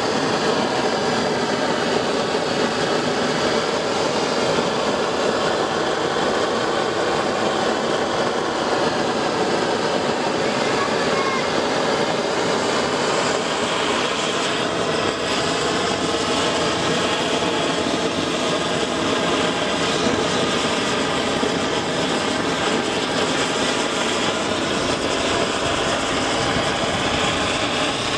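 Gas blowtorch wand burning with a steady rushing hiss as it singes an animal head.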